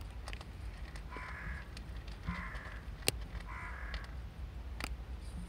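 A bird cawing three times, about a second apart, with a few sharp clicks from a cat crunching dry kibble.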